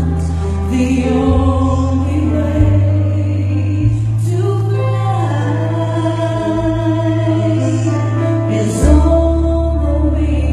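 A woman singing live with instrumental accompaniment, holding long notes over steady sustained bass notes.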